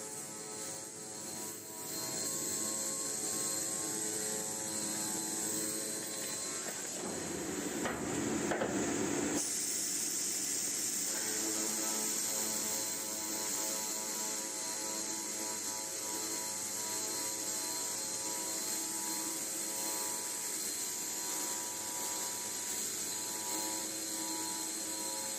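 HY 150NC CNC high-speed metal circular sawing machine running, a steady mechanical hum with a high hiss. About seven seconds in, a louder, rougher stretch lasts a little over two seconds.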